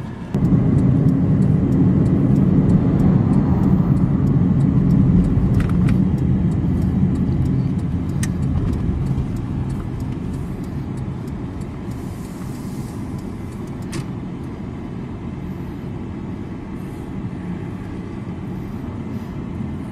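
Car engine and road noise heard from inside the cabin while driving, a steady low rumble. It rises suddenly a moment in and eases off gradually over the second half.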